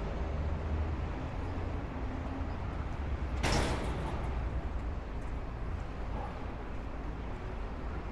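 Steady rumble of city street traffic. About three and a half seconds in, a short, loud burst of hissing air lasts about half a second.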